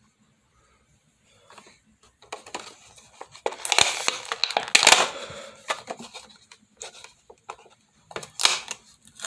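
Hot Wheels Monster Trucks blister pack being torn open by hand: crackling plastic and tearing card. It starts after a short quiet, is loudest in its middle stretch, and comes in scattered crackles and clicks toward the end.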